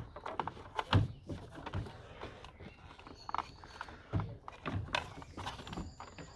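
Irregular knocks and clicks of the plastic parts of a Dyson DC04 vacuum cleaner being handled and worked loose by hand, the loudest knock about a second in.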